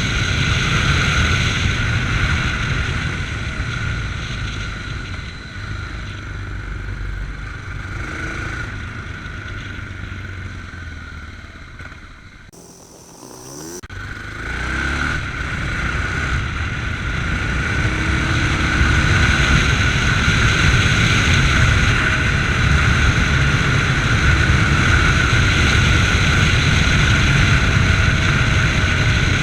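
Yamaha MT-03 motorcycle engine running under way, heard from the rider's chest with wind rushing past. Near the middle the engine sound falls away and goes quiet for a second or two, then builds back up and holds steady.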